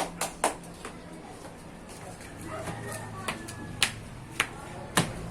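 A few sharp clicks and taps at uneven intervals, with a faint voice in the background.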